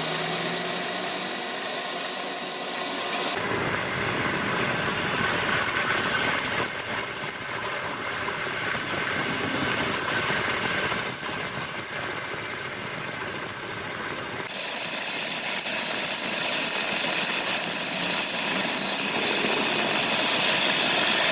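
Machinery running with a rapid rattling clatter and high squeal, the sound changing abruptly about four times.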